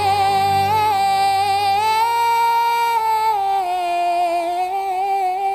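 Slow music: a high melody line with vibrato, moving in long held notes that glide from pitch to pitch, over a low sustained bass note that drops out about two-thirds of the way through.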